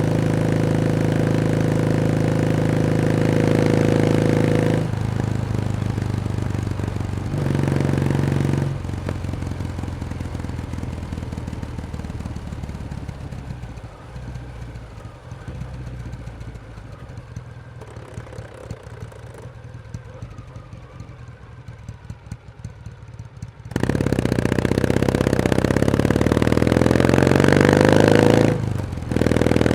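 Kawasaki W1S motorcycle's vertical-twin engine pulling steadily, then coming off the throttle. After a short blip it settles to a quieter, pulsing idle for about fifteen seconds, then revs up and pulls away, rising in pitch with a short dip near the end as it changes gear.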